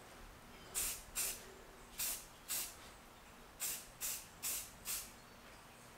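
Aerosol spray-paint can hissing in about eight short bursts, each a quarter second or so, in two quick runs of four.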